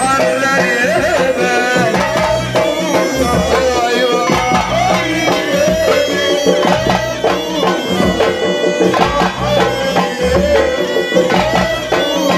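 Live Tunisian folk ensemble playing Jerba-style shalla dance music: goblet drums and frame drums beating a steady dance rhythm under a winding melody line.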